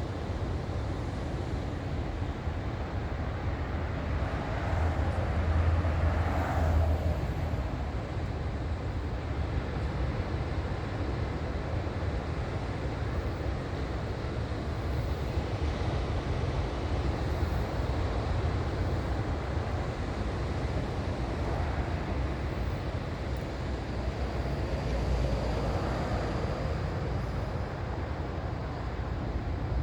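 Ocean surf washing steadily onto the shore, with waves breaking and swelling louder twice: about five seconds in and again near the end. Wind rumbles on the microphone.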